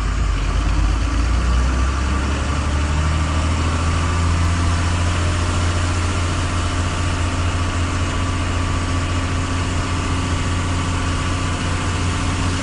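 Truck's diesel engine running steadily as the truck moves slowly, heard from inside the cab as a deep, even hum under a steady hiss.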